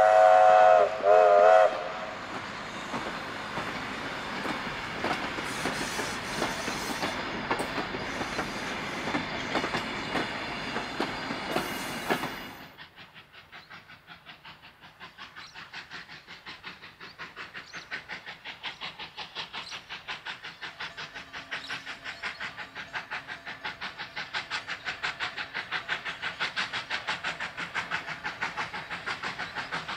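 Steam locomotive whistle sounding twice in the first two seconds, then wooden heritage carriages rolling away over the rails. After a sudden cut, the oil-burning Victorian Railways J class 2-8-0 steam locomotive J541 is working hard up a 1 in 40 grade, with fast, even exhaust beats that grow louder as it approaches.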